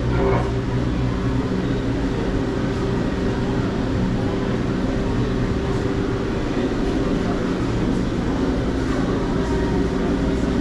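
A steady mechanical hum with a few held tones, mixed with a murmur of voices.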